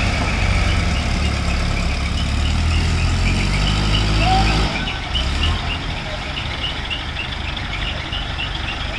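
ACE 12XW pick-and-carry crane's diesel engine running hard under load, its low drone dropping off about five seconds in. Through the second half, a quick train of short high beeps repeats two to three times a second.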